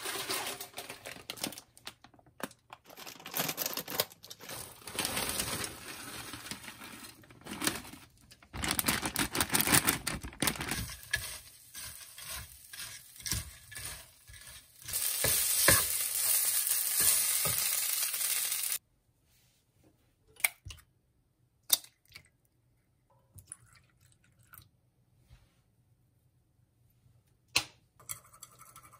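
Frozen fried rice sizzling in a non-stick frying pan, stirred and scraped with a spatula. About 19 s in the frying stops, leaving a few separate clicks and taps, and near the end metal chopsticks clink quickly against a bowl as eggs are beaten.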